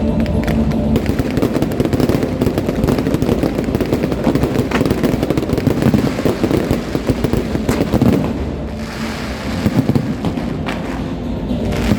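Fireworks going off in a dense, continuous barrage of rapid cracks and pops, thinning a little for a couple of seconds near the end.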